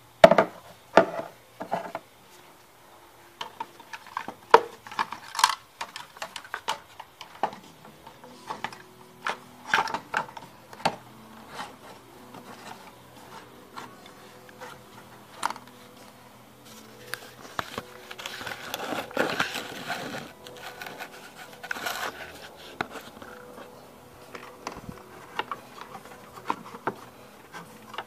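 Hands handling the plastic air intake duct and air filter box in an engine bay: scattered clicks and knocks of plastic parts, with a stretch of rubbing and scraping about two-thirds of the way through.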